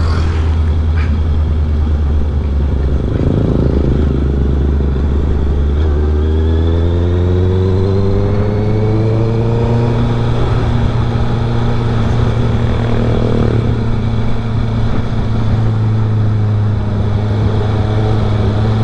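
Honda CB650R inline-four with an aftermarket R11 full exhaust, running while the bike is ridden. Its note shifts about three seconds in, rises over several seconds as the bike accelerates, then holds steady.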